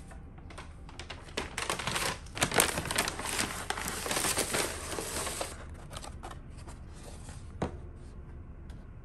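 Brown paper takeaway bag crinkling and rustling for about four seconds as it is pulled open and a box is drawn out, followed by lighter clicks and taps as the takeaway clamshell box is handled and opened, with one sharp tap about three-quarters of the way through.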